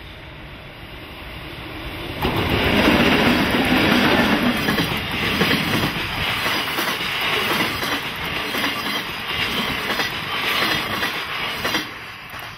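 Container freight train hauled by an EF64 electric locomotive passing close by. The sound jumps up suddenly about two seconds in as the locomotive goes past, then the container wagons' wheels clatter steadily over the rails for about ten seconds before the sound drops off sharply near the end.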